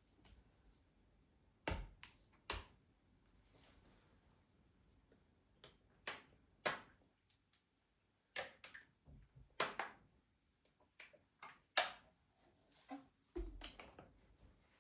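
Irregular light clicks and knocks of household objects being handled and set down, the loudest two close together about two seconds in and a cluster near the end.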